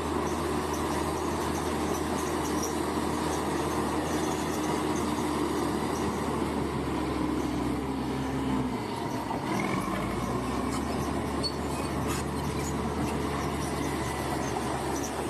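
Bulldozer's diesel engine running steadily, with metallic squealing and clatter from its steel tracks. The engine note dips briefly about nine seconds in, then picks up again.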